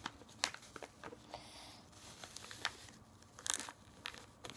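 Paper being bent and folded by hand: scattered small crinkles and taps, with a louder rustle about three and a half seconds in.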